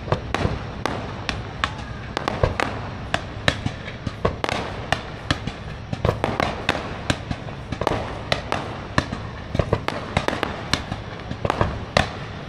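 Aerial fireworks bursting overhead: a rapid, irregular run of sharp bangs and crackles, several a second.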